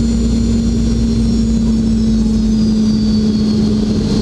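Cabin noise of a Boeing 717-200 on descent, dominated by its rear-mounted Rolls-Royce BR715 turbofan: a steady low rumble with a strong hum and a thin high fan whine that sags slightly in pitch in the second half.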